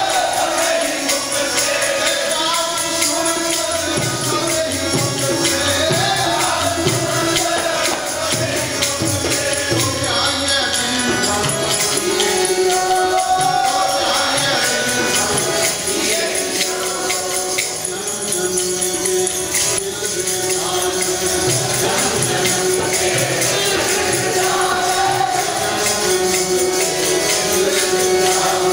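Sikh devotional kirtan: hymn singing over a steady held note, with tabla played in a continuous rhythm.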